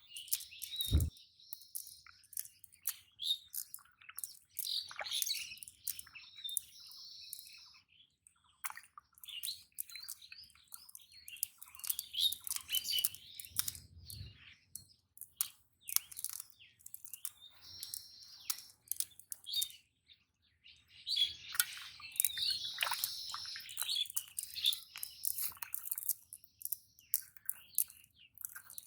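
Birds chirping, with many short calls and scattered clicks throughout, and a single low thump about a second in.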